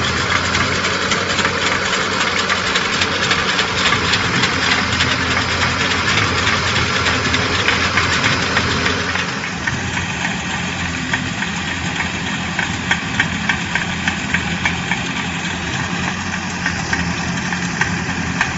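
Engine of an amphibious weed-cutting boat running steadily with a rapid, even clatter. About nine seconds in the sound drops a little and the clatter comes through more distinctly.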